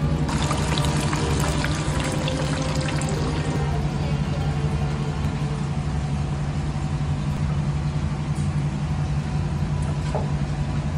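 Background music holding a steady low drone over an even hiss, with a few light clicks in the first few seconds.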